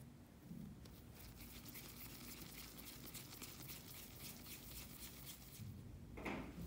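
Faint sticky crackling and squishing of soft bread dough being kneaded between the fingers. About six seconds in comes one louder soft squish as the dough ball is pressed down onto a disc of cookie dough.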